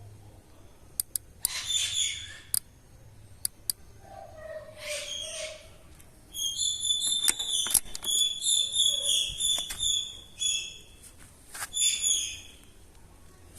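Birds calling in short, repeated high-pitched phrases, with a few sharp clicks in the first seconds.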